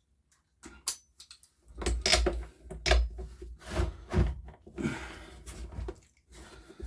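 Clunks and knocks of a spark plug spanner being fitted and strained against a tight spark plug on a small four-stroke engine, with dull low thuds as the machine is braced and shifted.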